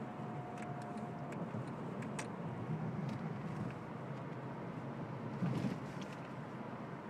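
Steady road and engine noise heard inside a moving car's cabin. A few faint clicks come early, and a brief louder thump sounds about five and a half seconds in.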